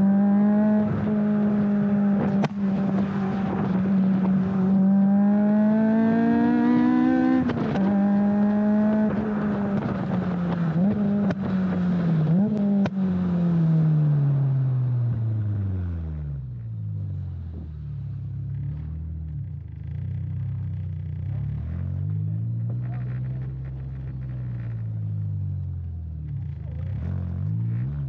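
The K20-swapped Honda Civic EJ9's four-cylinder engine and exhaust running under way. The engine note climbs and drops suddenly about seven seconds in, then falls away and carries on at lower revs, rising and falling gently several times.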